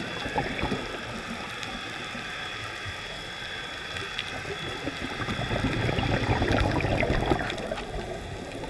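Underwater sound picked up through an action camera's waterproof housing: a steady, muffled water noise, with a louder low swell about five to seven and a half seconds in, typical of a scuba diver's exhaled bubbles.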